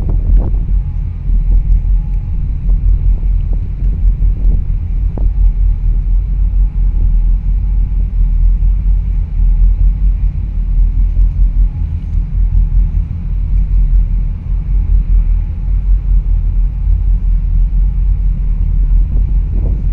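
Wind buffeting the microphone: a loud, low, uneven rumble that swells and dips every second or so.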